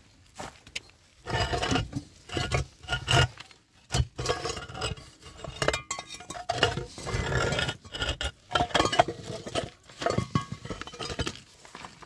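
Hollow clay bricks and concrete blocks knocking against each other as they are shifted by hand: a run of irregular hard knocks starting about a second in.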